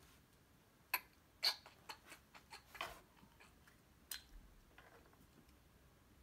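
Pencil drawing short strokes on paper: a few faint, brief scratches and taps, most in the first half, the last a little after four seconds in.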